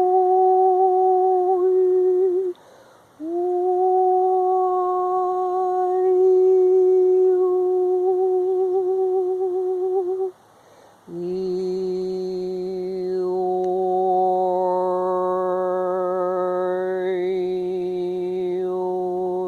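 A woman's voice toning wordlessly in long held notes with a slight wobble, pausing for breath about 2.5 s and 10 s in. The third note is lower and fuller, its overtones shifting near the end.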